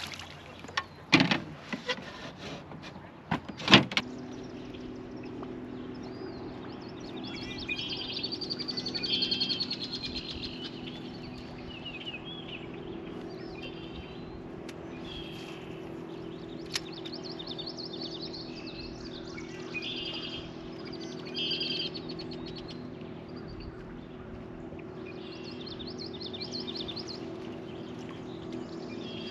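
Songbirds singing in short repeated phrases every few seconds over a steady low motor hum. A few sharp knocks sound in the first four seconds.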